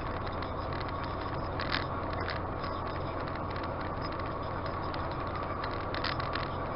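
Steady road and engine noise of a moving car, heard from inside the cabin through a dashcam, with a low, even hum and a few brief clicks.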